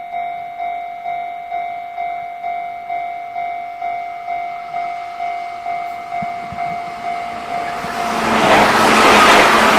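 Japanese level-crossing warning bell dinging about twice a second. About eight seconds in, an electric train arrives and its passing noise swells loud over the bell.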